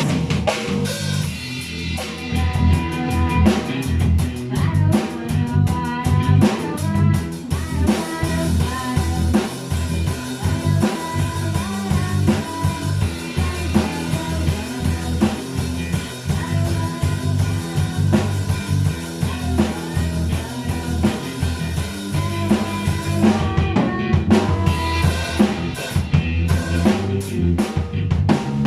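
Music with a steady drum-kit beat (bass drum, snare and rimshots) under pitched instruments, possibly including guitar.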